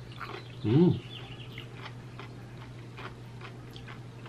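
A crunchy pickle being chewed, with scattered crisp crunches. About a second in comes a short pitched vocal sound whose pitch rises and falls, louder than the chewing.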